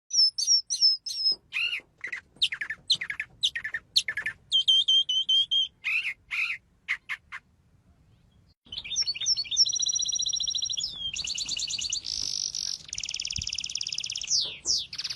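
Bird calls: a quick run of short chirps and whistled notes, a pause of about a second, then a long series of harsh, rapidly buzzing squawks.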